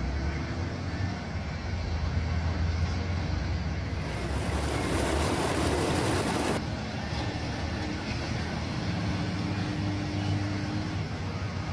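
Tractor engine running steadily with a low hum while it drives a Vermeer VS 350 vertical feed mixer that is discharging feed. The sound changes abruptly a little past halfway through.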